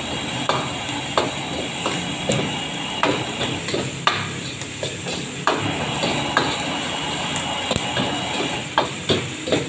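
A metal ladle and spatula scrape and knock against a steel wok as crumbled egg is stir-fried until crisp. Irregular clinks come about once or twice a second over a steady hiss.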